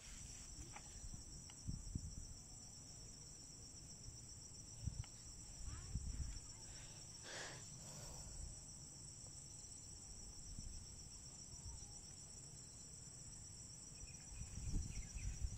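Faint, steady high-pitched drone of insects in the grass, with occasional soft low thumps.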